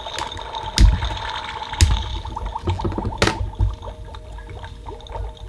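Beast Lab Shark Beast Creator toy playing its bubbling, gurgling lab sound effects through its speaker, with steady electronic tones held underneath. A few sharp plastic clicks and knocks come from the chamber's screw-on lid as it is gripped and twisted, about one, two and three seconds in.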